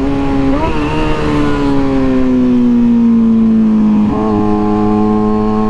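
Kawasaki ZX6R's inline-four engine with an M4 GP exhaust, heard onboard while riding. Its note falls slowly in pitch, then changes briefly just after four seconds in and holds steady, with a steady rush of noise over it.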